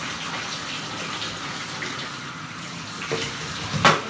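Water running from a bathtub tap and splashing in the tub while a dog is being wetted down for its bath, with a sharp knock near the end.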